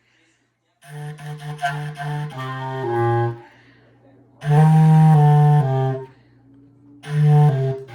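A single wind instrument playing solo in a fairly low register, in three short phrases: a run of quick stepping notes that fall in pitch, then a couple of louder held notes, then a brief phrase near the end, with rests between.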